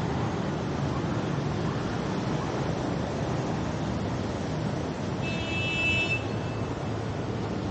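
Steady noise of city traffic, motorbikes and cars. A vehicle horn sounds once, high-pitched, for about a second a little past the middle.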